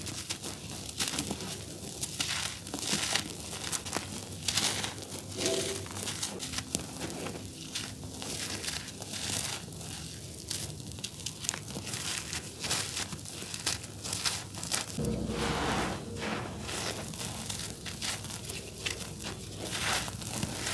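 Dry, grainy charcoal cakes crushed and crumbled in bare hands: a continuous run of irregular gritty crackles and crunches as the lumps break apart into powder.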